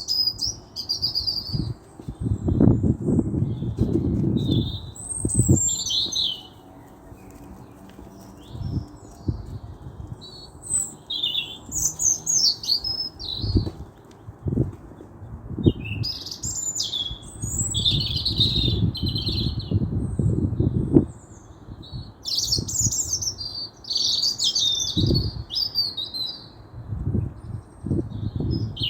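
Small birds chirping and twittering in quick, varied high calls, with bouts of low fluttering thumps, like wings flapping close to the microphone.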